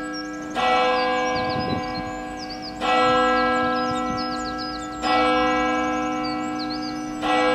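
A single large bell tolling slowly at one pitch, struck four times about two and a quarter seconds apart, each stroke ringing on and fading before the next. Birds chirp faintly behind it.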